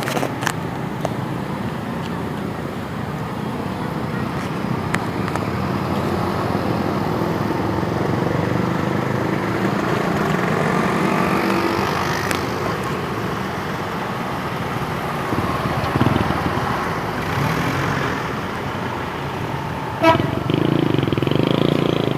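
Telolet horn, the Indonesian multi-tone horn, sounding a tune of shifting tones over engine and traffic noise, with a sharp click and a louder stretch near the end.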